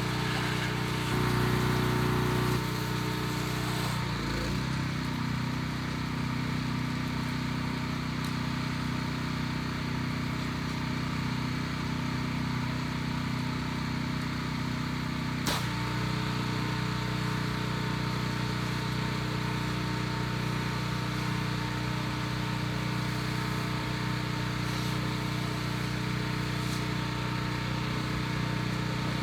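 Pressure washer's engine running steadily with water hissing from the spray wand. The sound shifts about four seconds in, and there is one sharp click about halfway through.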